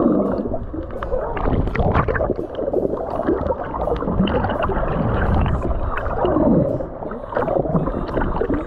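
Sea water sloshing and gurgling, loud and uneven, surging and easing every second or so, with a low rumble underneath.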